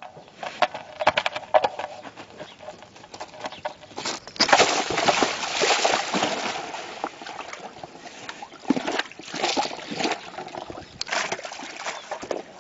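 Water splashing and sloshing in a metal stock tank as a tiger shoves a large ball into it, with scattered knocks and scuffs. The splashing is loudest about halfway through and comes in uneven bursts.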